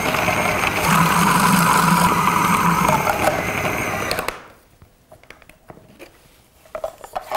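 Small electric food processor running, chopping a fish mince of fish, egg, breadcrumbs and cream cheese. The motor grows louder about a second in and cuts off a little after four seconds, then a few light plastic clicks follow.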